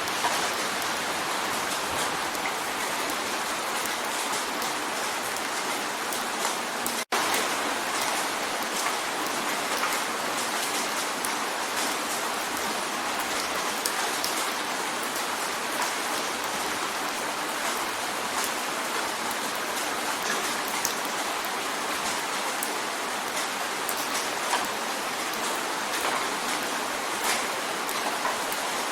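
Steady rain drumming on a window pane, a dense even hiss of drops with fine individual taps. About seven seconds in the sound drops out for a split second and resumes.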